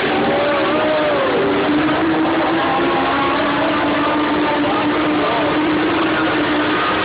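Dwarf race cars running on the track, several engines at once making a steady loud drone, with a few brief rises and falls in engine pitch.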